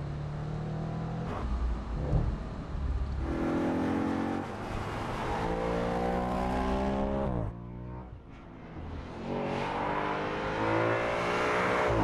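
Audi RS 5 Cabriolet's V8 engine accelerating hard, its revs climbing in repeated runs with gear changes. The sound drops away suddenly about seven and a half seconds in, then the revs build again, louder, near the end.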